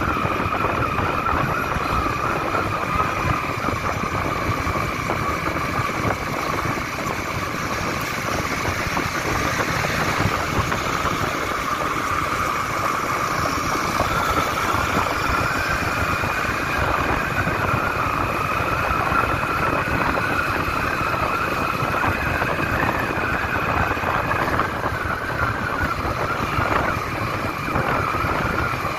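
Steady engine and wind noise of a moving motorbike on the road, with a steady high whine over it.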